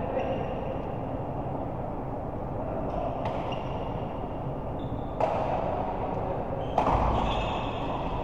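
Steady background din in a large hall, broken by a few sharp hits about three, five and seven seconds in, each followed by brief high squeaks, as during a rally in an indoor doubles match.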